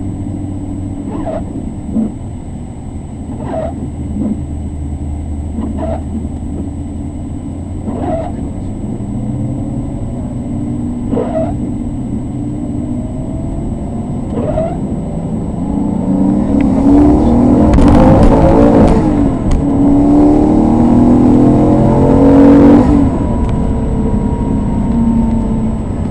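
Maserati 3200 GT's twin-turbo 3.2-litre V8, heard from inside the cabin, pulling gently at first and then accelerating hard through the gears. Its pitch climbs in long rising sweeps and it is loudest in the second half, with a faint light tick every two to three seconds early on under the low engine sound.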